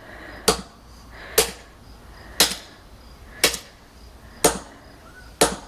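Repeated sharp blows, six in all about a second apart, smashing a statue wing sealed inside a plastic bag into small pieces.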